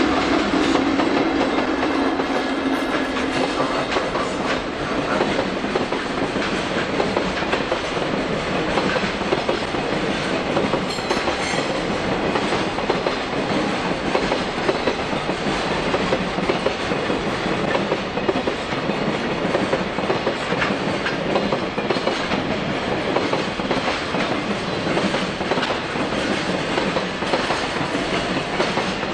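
A freight train of container wagons rolling past, its wheels clicking steadily over the rail joints. A low tone in the first few seconds fades out.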